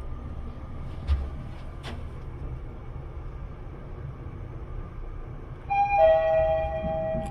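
Mitsubishi Elepet Advance V elevator running with a steady low hum and two clicks early on, then its arrival chime sounds near the end: two ringing notes, a higher one followed by a lower one, signalling that the car has reached the floor.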